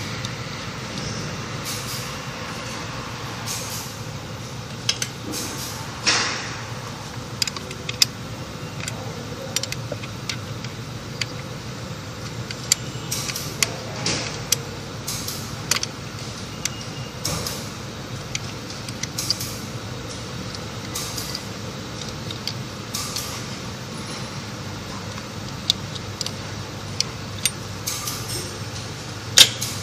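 Work noise at an engine: irregular sharp clicks and knocks of hand tools and parts being handled, over a steady low hum.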